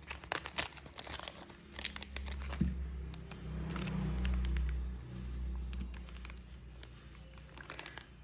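Plastic wrapping crinkling with many small clicks and taps as a Zippo lighter is handled, with a low rumble of handling noise swelling in the middle.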